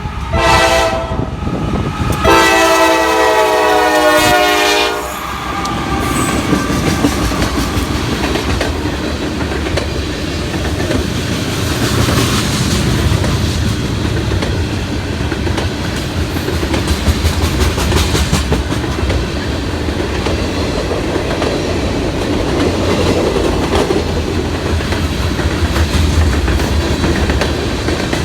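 Norfolk Southern freight train's horn sounds a short blast, then a longer one of about three seconds, several tones at once. Then the train rolls past with a steady rumble and its wheels clicking over the rail joints.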